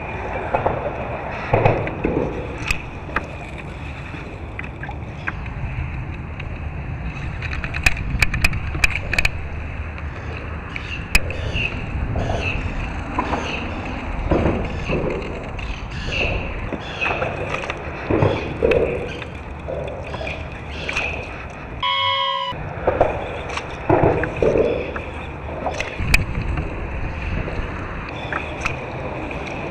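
Water sloshing and gurgling against a kayak hull, with scattered sharp clicks and knocks that cluster about eight seconds in. There is a brief cut-out about two-thirds of the way through.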